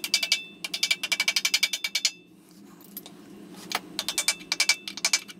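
Rapid light metal-on-metal taps seating a reused expansion plug into a Ford tractor transmission case: quick runs of about ten ringing taps a second, with a pause in the middle. A steady low hum runs underneath.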